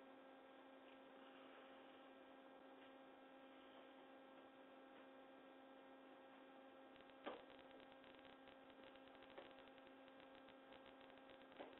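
Near silence with a steady faint electrical hum, and a few faint clicks in the second half.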